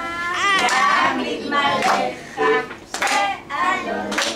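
Young children's high voices calling out together, with a few hand claps about three seconds in and again near the end.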